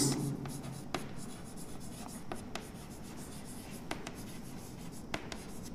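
Chalk writing on a chalkboard: faint scratching strokes, with a few light, sharp taps as the chalk meets the board.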